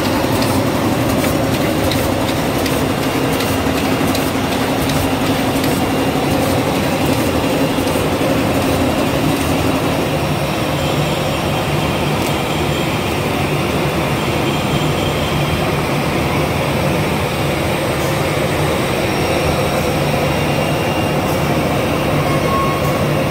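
Automatic pocket-tissue production and packing machine running: a steady mechanical clatter with fine rapid clicking. Its hum drops lower about ten seconds in.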